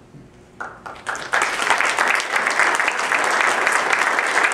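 Audience applauding: a couple of scattered claps before a second in, then the whole audience joins in with steady applause.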